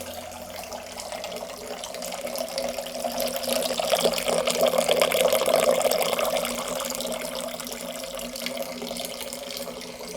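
Water running from a tap into a sink, picked up by a microphone brought slowly closer to the stream: the rush grows louder to a peak about halfway through, then eases off somewhat.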